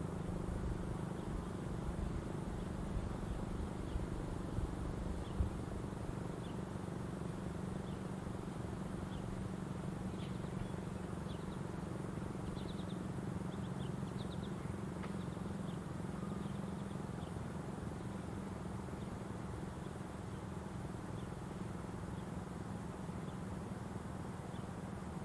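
Federal Sign & Signal STL-10A tornado siren, with a 10 HP motor and seven-port rotor, coasting down slowly after a full alert signal. It gives a low hum that holds nearly steady in pitch. Faint bird chirps sound over it in the middle.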